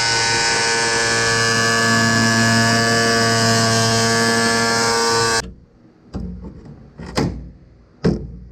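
Angle grinder with a cut-off wheel cutting through the steel hood's sheet metal: a loud steady whine with many overtones that cuts off about five and a half seconds in. Three sharp knocks follow.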